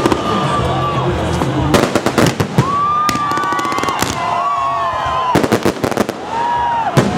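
Fireworks salute going off in repeated volleys of rapid crackling, four or so clusters of fast pops, with long steady whistling tones between them.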